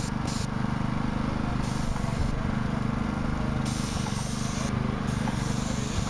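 Airless paint sprayer: its motor-driven pump runs with a steady low hum while the spray wand hisses on and off in short bursts, four or so times, as paint is sprayed.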